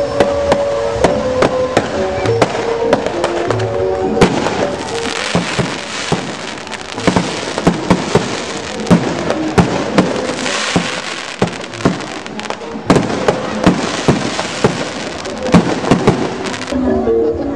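Fireworks going off: a dense run of sharp bangs and crackles from aerial bursts and spark fountains, with a hiss underneath. Show music plays under it in the first few seconds.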